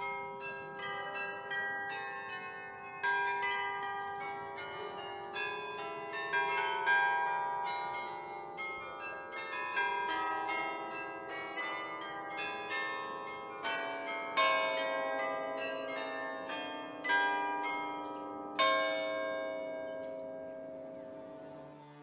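Bells ringing: a run of struck bell tones, one or two a second, each left ringing and overlapping the next, dying away near the end.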